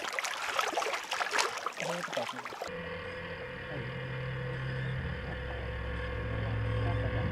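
Rushing, splashy noise, then after a sudden cut a little over a third of the way in, a steady low engine hum, typical of a boat's motor running.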